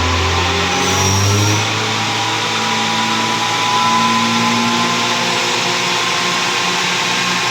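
Car engine running steadily, its pitch drifting only slightly.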